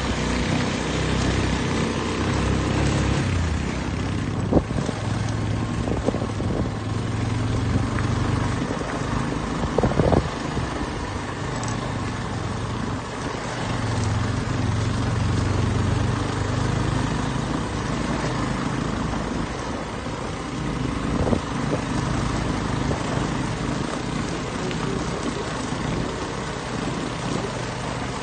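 Motorcycle engine running while riding over a rough dirt road, with wind rushing over the microphone. A few sharp knocks from bumps come through, the loudest about ten seconds in.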